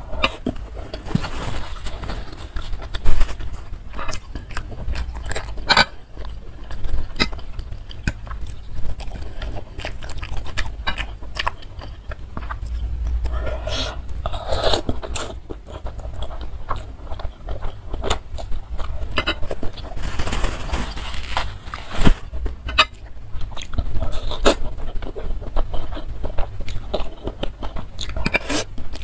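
Close-up eating of instant noodles in spicy broth: noodles slurped up in noisy stretches about halfway through and again later, chewing in between, and a metal fork and spoon clicking and scraping against the bowl.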